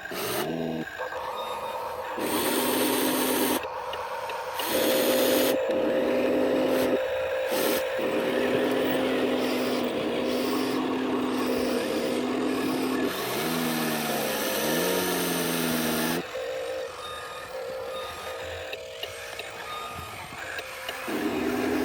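Electric motors and gearboxes of radio-controlled construction models whining as they work, the pitch sliding down and back up near the end and cutting off suddenly, with stretches of hissing noise earlier on.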